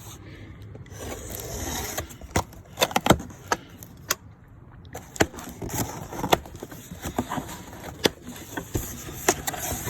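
Items and packaging being handled and unpacked: rustling and scraping, then a run of sharp, irregular clicks and knocks.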